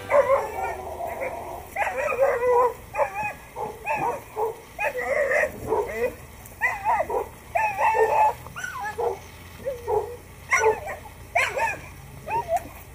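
Dog-aggressive American Pit Bull Terrier whining and yelping over and over in a long run of high, wavering cries.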